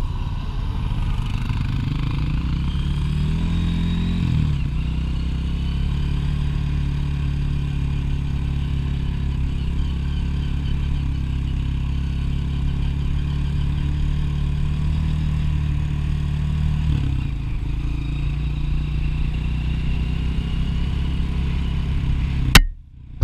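Dirt bike engine running while riding, its pitch rising a few seconds in as the bike speeds up, then holding steady, and dropping in revs about seventeen seconds in. Near the end the sound cuts off with a sharp, loud click.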